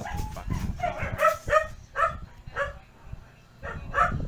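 A dog barking over and over, about two or three short barks a second, with a brief pause shortly before the end.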